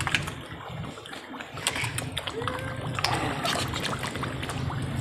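A crowd of koi thrashing and splashing at the surface of a pond as they jostle for food, making many small irregular splashes.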